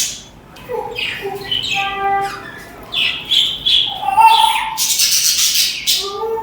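Budgerigars chirping and warbling in short, varied calls, with a harsh, raspy burst of chatter from about four seconds in that is the loudest part.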